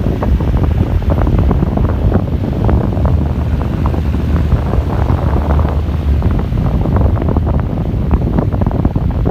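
Venti-Delta Ventura electric fan running, its airflow blowing straight onto the microphone as loud, rumbling, crackling wind noise.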